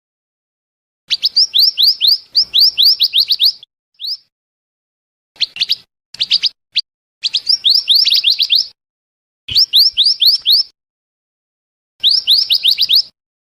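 Scarlet minivet (mantenan) calls played as a bird lure: phrases of quick, high, downward-slurred whistled notes, several in fast succession, repeated with short pauses between phrases.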